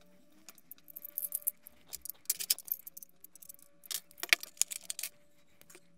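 Small brass gas-regulator fittings being handled, clinking and rattling against each other in irregular bursts of light metallic clicks, loudest twice, about halfway and about two-thirds of the way through.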